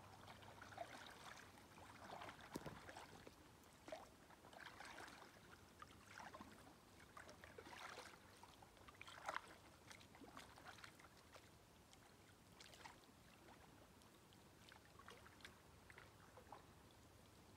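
Faint splashes and drips of a double-bladed kayak paddle dipping into calm water, stroke after stroke, with one louder splash about nine seconds in.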